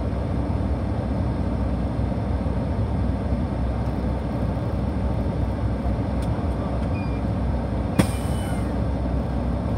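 Fire engine's diesel engine running in a steady low rumble as the truck rolls slowly, heard from the cab. About eight seconds in there is one sharp click, followed by a short hiss.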